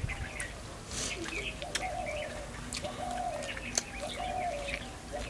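Birds calling: a low cooing note repeated about five times, each held for about half a second, with higher chirps over it.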